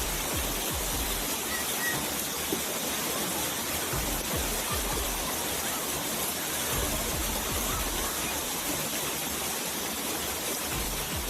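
Floodwater rushing over a road diversion: a steady, even rushing noise, with wind rumbling on the microphone now and then.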